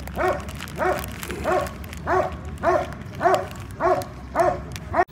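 A dog barking over and over at a steady pace, close to two barks a second.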